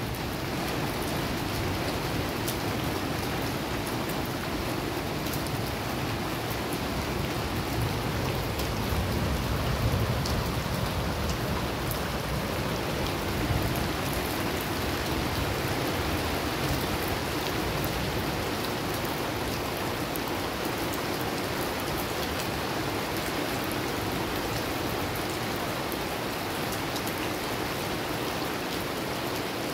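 Steady rain falling on a flooded street, drops splashing into standing water.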